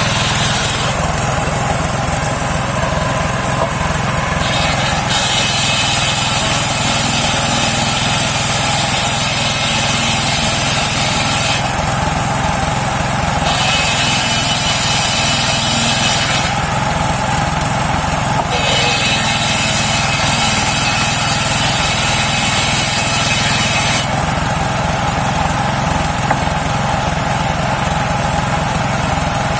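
Engine-driven homemade circular sawmill running steadily, its saw blade cutting a saman log. A higher-pitched sound from the cut comes in three times for several seconds each and stops between them.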